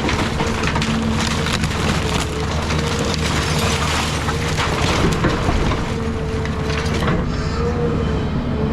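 Cat 323 excavator running under load while its bucket and thumb crush and splinter the wooden structure of a house, with a steady engine drone and whine under repeated cracking and crunching of timber.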